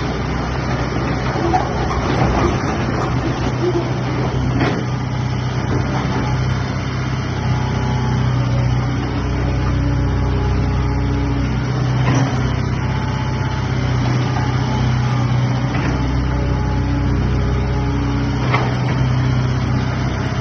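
Komatsu excavator's diesel engine running steadily, with a few brief knocks over it.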